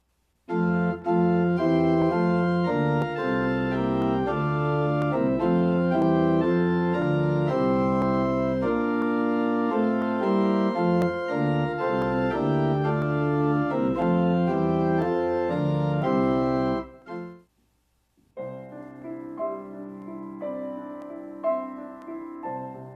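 Organ playing held chords for about sixteen seconds, then stopping abruptly. After a brief pause a piano begins playing, more quietly. This is a broadcast-audio sample recorded through the original mixer set-up, with the organ on a direct feed.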